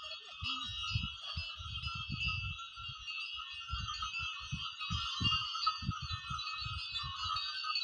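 Small bells on a pair of plough oxen jingling continuously, with irregular low thumps underneath.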